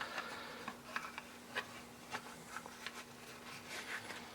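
Faint, scattered light clicks and rustles of a pistol and a holster being handled, over a steady low hum.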